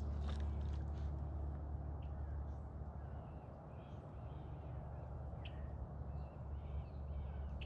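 Several faint, short bird calls in the second half, over a steady low outdoor rumble.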